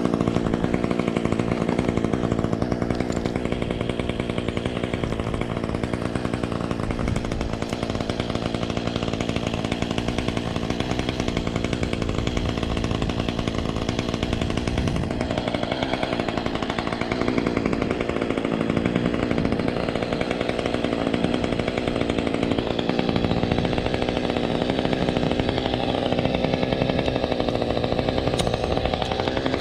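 Husqvarna T435 two-stroke top-handle chainsaw running steadily at an even speed, left running to warm up.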